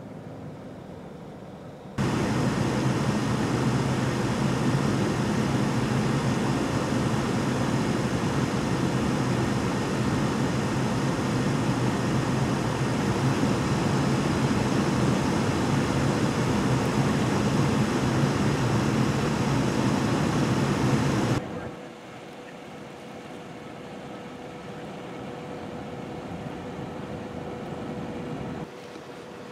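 Steady vehicle engine running close by: a low hum under a loud even hiss. It starts abruptly about two seconds in and cuts off about twenty-one seconds in, leaving quieter steady traffic-like noise.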